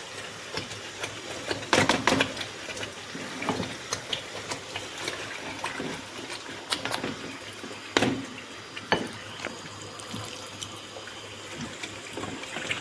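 Water running steadily, with several knocks and clatters of a container being handled.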